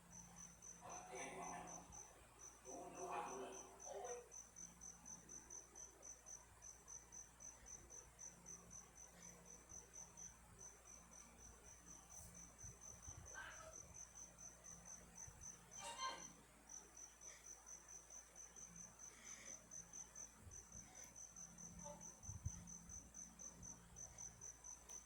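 A cricket chirping: short, high-pitched pulses, about four a second, in long runs broken by brief pauses. It sounds faint against a quiet background.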